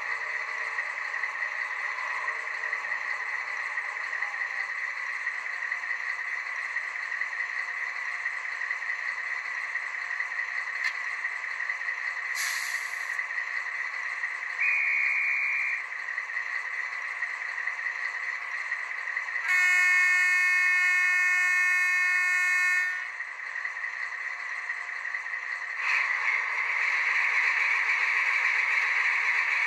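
Sound decoder of a Fleischmann N-gauge DR BR 112 (ex-V100) diesel locomotive model, playing its diesel idle through the model's tiny speaker. Partway through comes a brief hiss, then a short single-tone sound, then a horn blast of about three seconds, the loudest sound here. About 26 s in, the engine sound swells louder as the engine revs up for departure.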